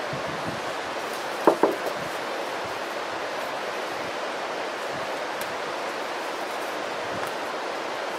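Two quick clinks of a metal spoon against the steel canteen cup about a second and a half in, over a steady outdoor hiss.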